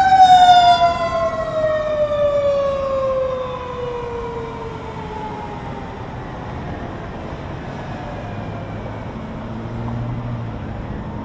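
Fire apparatus siren winding down, its pitch falling steadily over about five seconds as it fades, with a second siren glide rising briefly near the start. Afterwards, steady traffic and truck engine noise, with a low engine rumble swelling near the end.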